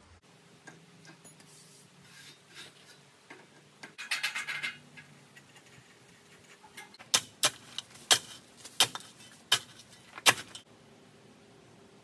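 Loose metal hardware rattling briefly, then six sharp metallic clanks about two-thirds of a second apart, from tools and bolts being worked on the steel sawmill track during assembly.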